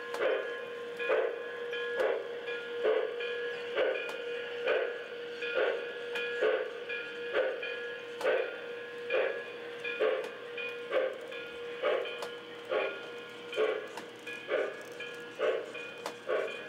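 O-scale model train, a steam locomotive hauling coal hoppers, running along the track: a rhythmic pulse about once a second over a steady hum.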